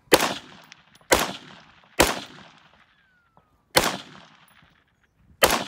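Five single rifle shots at long-range targets, each with a ringing echo tail: the first three about a second apart, then two more after longer pauses, the last near the end.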